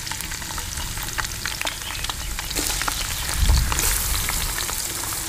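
Sliced onions sizzling in hot oil in an aluminium karahi, a dense hiss full of fine crackles. The sizzle grows louder about two and a half seconds in as more onions go in, with a low thump about a second later.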